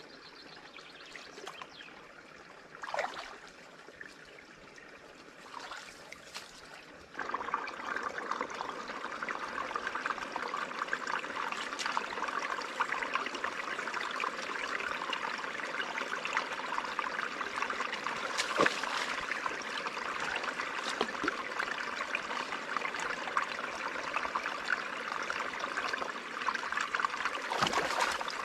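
River water running and trickling. It is quieter at first with a couple of brief louder moments, then about seven seconds in it steps up suddenly to a louder, steady rush of water.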